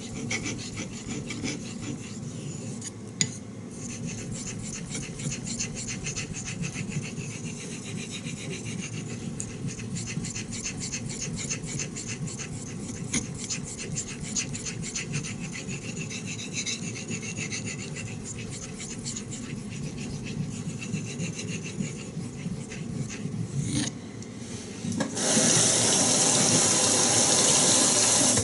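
Knife blade of 3V steel stroked rapidly back and forth on a wet Shapton 5000 grit water stone worked with Tenjo nagura slurry: an even scraping rub of steel on wet stone, in the fine-polishing stage. About 25 s in, the strokes give way to a tap running steadily, louder than the strokes.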